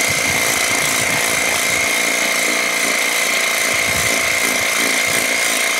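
Fixnow 500E cordless pressure washer running steadily, with a constant high whine from its pump over the hiss of the water jet spraying a fabric cushion.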